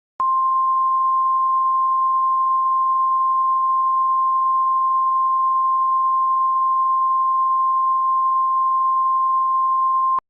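Emergency alert attention tone: a single steady electronic tone that starts abruptly and holds unchanged for about ten seconds before cutting off sharply.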